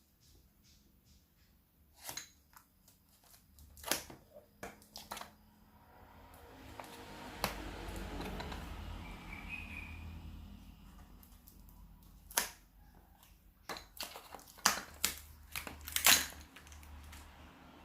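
Handling noises: a string of sharp clicks and taps, with a stretch of rustling in the middle.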